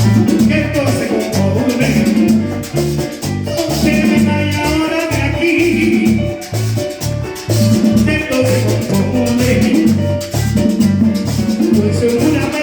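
Latin dance-band music in an instrumental passage: a bass line of short notes on a steady beat, with a melody line above it.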